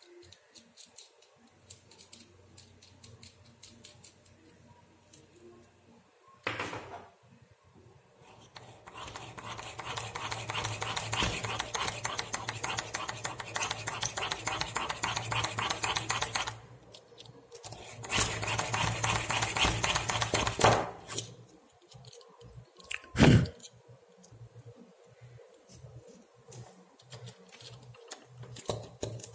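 Small twist bit in a hand-turned pin vise drill cutting into a board, a fine rapid scraping in two spells, the first about eight seconds long and the second about three. A couple of sharp knocks are heard, the loudest about two seconds after the second spell ends.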